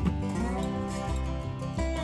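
Background music: an instrumental tune with plucked acoustic guitar.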